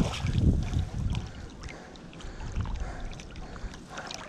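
A hooked brown trout splashing and thrashing at the surface as it is played toward the net, with wind rumbling on the microphone in gusts, strongest in the first second.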